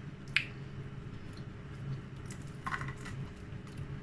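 Close-miked eating sounds of crispy fried milkfish (daing na bangus) being chewed: a sharp click about half a second in and a short cluster of crackles near three seconds, over a steady low hum.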